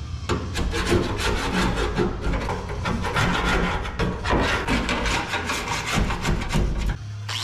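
A pry bar scraping and chipping seam sealer out of a car body panel seam, in quick, irregular strokes with many sharp scrapes and clicks.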